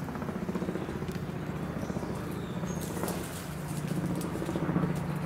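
Steady low drone of a motor or engine running, in fast even pulses, with a few faint ticks over it.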